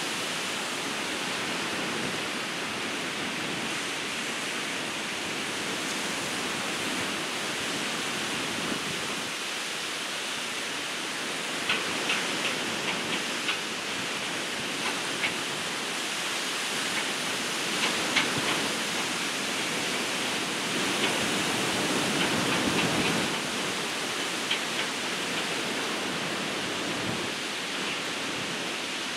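Ocean surf breaking and washing up a beach: a steady rush of waves, with a scatter of short crackling ticks in the middle stretch.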